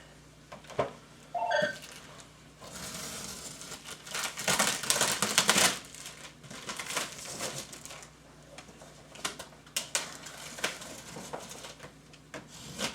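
Packaging being handled and pulled open: plastic wrap and cardboard rustling and crinkling, with scattered clicks and knocks. The loudest stretch is a long rustle from about three to six seconds in. A brief high ring sounds about a second and a half in.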